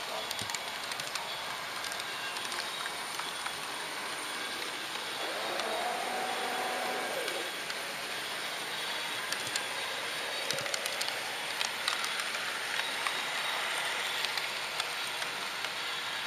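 HO-scale model train running along its track, heard from the camera riding on it: a steady whirring hiss with scattered light clicks in the second half.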